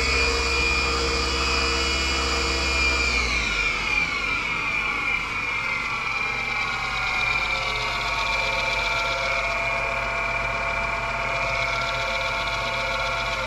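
Home-built CNC router spindle, belt-driven by a 750 W AC servo motor, running at high speed with a steady whine. About three seconds in, its pitch falls over a couple of seconds as the speed potentiometer slows it, and it then runs steadily at a lower speed.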